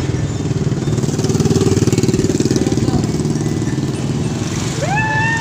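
A small motorcycle engine running close by, its rapid firing pulses loudest about two seconds in and then fading as it moves off.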